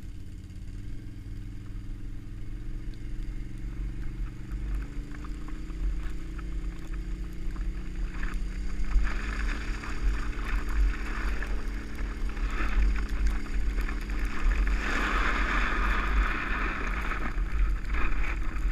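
Can-Am XMR ATV engine running ahead and speeding up, its pitch climbing over the first several seconds and then holding steady. Over a constant low rumble, a trash can lid is dragged over the snowy road, and its scraping hiss grows louder from about halfway through.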